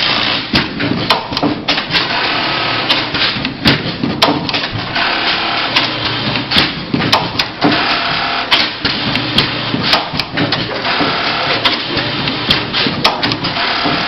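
S-430D-VA automatic velcro feeding and attaching machine running: an industrial sewing head and its velcro feeder working, with irregular sharp clicks and clacks over a steady mechanical clatter.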